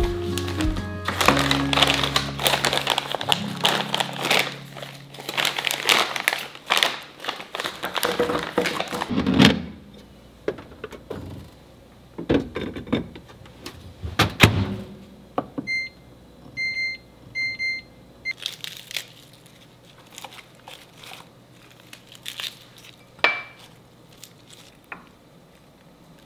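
Dishes and a plastic food container clatter and knock as they are handled, over soft background music that fades in the first few seconds. Midway a countertop oven's control panel gives a quick run of short electronic beeps as it is set, followed by a few more light knocks.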